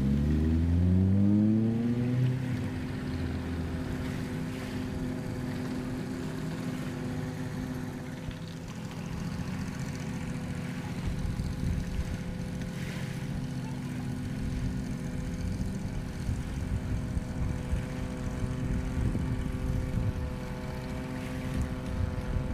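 Boat engine revving up over the first two seconds, then running at a steady drone.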